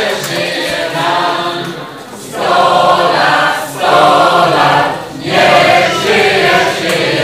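A crowd of people singing together in a loud group chorus, in short phrases with brief breaks about two, four and five seconds in.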